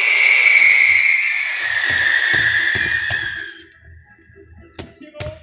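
Whistling firework: a loud hissing whistle that slowly falls in pitch and dies away after about three and a half seconds, followed near the end by a few sharp cracks.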